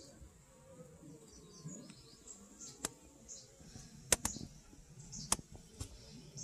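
Honey bees on an open brood frame buzzing in a low, wavering hum, with faint high chirps above it. A few sharp clicks come about 3, 4 and 5 seconds in, the loudest a close pair near 4 seconds.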